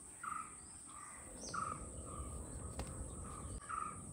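A bird calling repeatedly, a short call about four times at roughly one-second intervals, each with a mid-pitched note and a higher falling note, over faint outdoor background noise.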